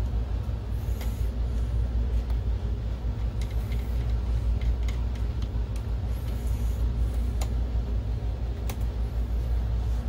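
A steady low rumble, with scattered light clicks and taps of a screwdriver driving small screws into a projector's sheet-metal shield.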